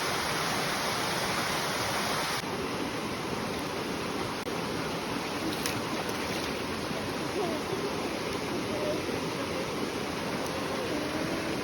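Rushing water: a steady hiss of flowing forest water that turns a little softer and duller about two seconds in.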